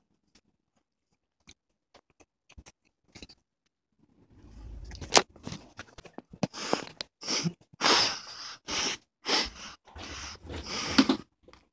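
A few faint mouth clicks from chewing. About four seconds in, a run of quick, heavy breaths right at the microphone begins, one or two a second, with a low bump near the start.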